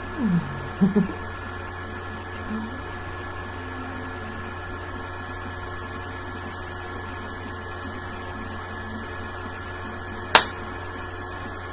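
Steady hum with a few short, low, falling hummed sounds from a woman's voice in the first second, then a sharp click about ten seconds in and another at the very end.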